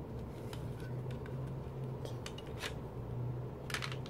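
Plastic CD jewel case being handled, giving scattered light clicks and taps as a photocard is worked out of it, with a few quick clicks near the end.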